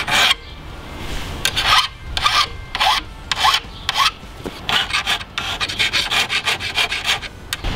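Mill bastard file rasping over the forged steel spike tips, sharpening them and taking off a burr. Separate strokes about every half second at first, then a quicker run of short strokes from about halfway through.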